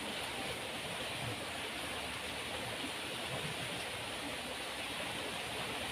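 Swift river current rushing steadily, an even, unbroken sound of fast-flowing water.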